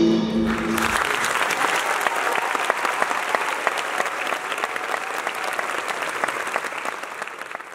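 Theatre audience applauding, a dense patter of many hands clapping that starts as the music's final chord dies away about a second in, and fades out near the end.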